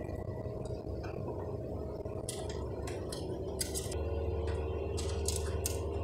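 An African grey parrot making a series of sharp clicks and taps, several of them between about two and six seconds in. Under them runs a steady hum that gets louder about four seconds in.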